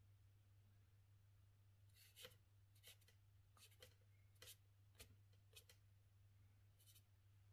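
Faint scratchy strokes of charcoal on paper: about seven short strokes spread from about two seconds in to near the end, over a steady low hum.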